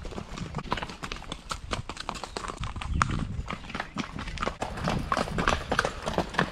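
Horses' hooves clip-clopping on a stony dirt trail, a stream of sharp, irregular clicks and knocks.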